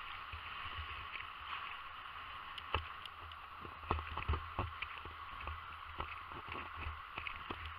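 Small waves lapping on the shore, with wind rumbling on the microphone and scattered light clicks and taps from about a third of the way in.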